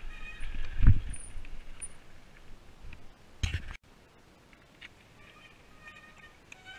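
Mountain bike rolling over a rough trail, heard on the rider's action camera: rumble with a hard knock about a second in and another burst of noise a little later. Then the sound drops abruptly to a much quieter stretch with only faint high tones and a few light ticks.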